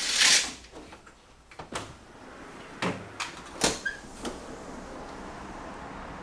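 A sliding balcony window being pushed open, a loud hissing slide followed by several sharp clicks and knocks of the frame. After that a steady hum of outdoor city noise comes in through the open window.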